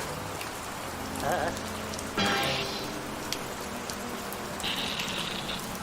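Steady rain falling, with faint cartoon soundtrack sounds mixed in underneath. There is a brief wavering sound about a second in, a sudden louder burst a little after two seconds, and a high held squeak near the end.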